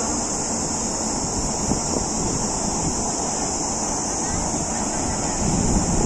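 Wind rushing over the microphone, over a steady high-pitched hiss.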